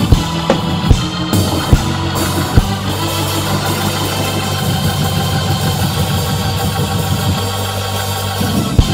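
Church worship music: an organ holding sustained chords, with drum hits about every 0.8 s for the first two and a half seconds, then stopping and returning at the very end.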